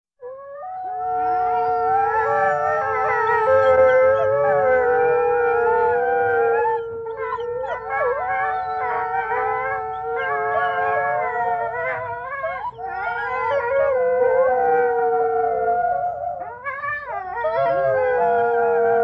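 A pack of wolves howling in chorus: several long howls held at different pitches overlap, while other voices rise, fall and waver around them.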